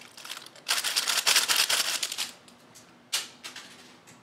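Crinkly plastic cat toy rustling and crackling: about a second and a half of rapid crackle, then a shorter burst about three seconds in.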